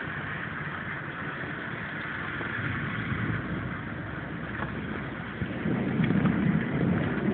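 Severe storm wind blowing steadily, with a louder low rumble building about five and a half seconds in.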